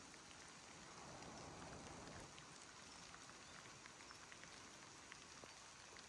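Faint patter of raindrops on leaves and ground: scattered soft ticks over a low steady hiss.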